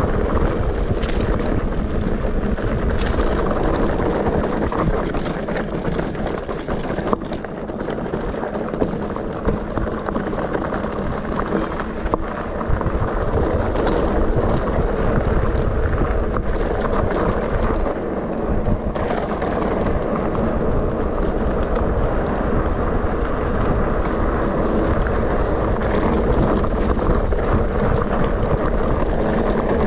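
Wind buffeting the microphone of a mountain bike in motion, mixed with tyres rolling over a gravel and dirt track. Scattered short clicks and knocks come from the bike rattling over the bumps.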